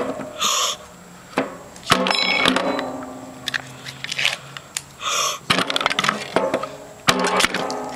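A small studded treasure-chest box being handled and opened: a run of clicks and knocks, with a brief metallic rattle about two seconds in and two short hissing bursts.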